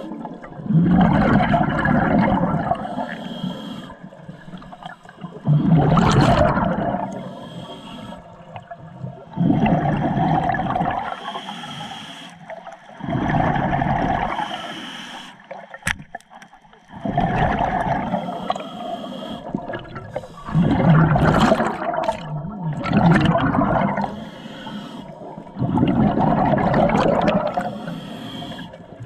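Scuba diver breathing through a regulator underwater: a hiss on each inhale, then a rush of exhaled bubbles, repeating about every three to four seconds.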